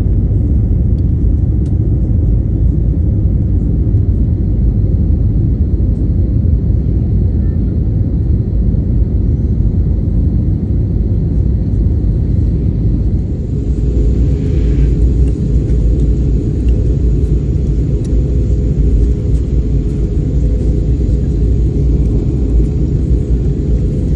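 Steady low rumble of a jet airliner's engines and rushing air heard inside the cabin. About halfway through the sound shifts and a steady hum joins the rumble.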